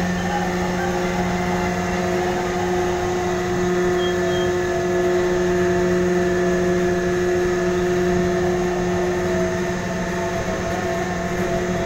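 A ferry's engines and onboard machinery running with a steady drone: a low hum with several held tones while the ship undocks.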